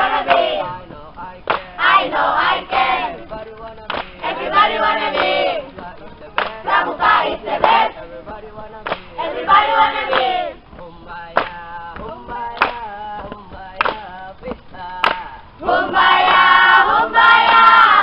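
A group of young people singing together in short phrases, with hand claps between the phrases. Near the end the singing runs on without a break and grows louder.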